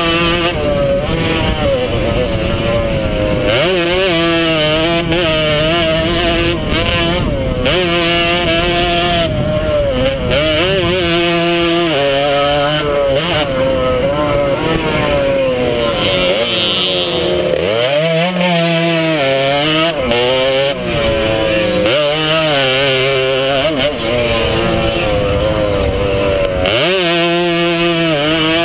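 Vintage 100cc two-stroke motocross bike engine revving hard under the rider, its pitch climbing and falling again and again with throttle and gear changes, easing off about two-thirds through before pulling up again. Wind rushes over the helmet-mounted microphone throughout.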